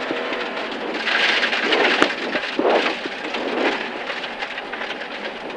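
A rally car driving fast on a gravel stage, heard from inside the cabin: a steady hiss and rattle of gravel and road noise, with scattered sharp clicks of stones striking the car.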